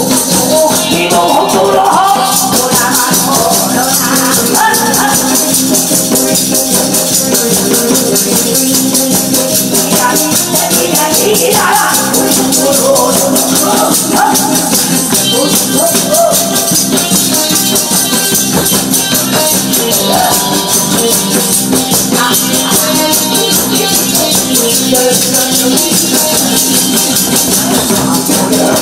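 Yeot scissors (a taffy seller's large iron shears) clacked in a fast, steady rhythm as percussion over loud backing music.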